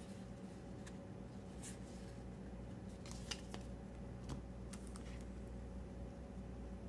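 Foil trading cards sliding against each other as a small stack is flipped through one card at a time: several brief, soft scraping swishes over a faint steady hum.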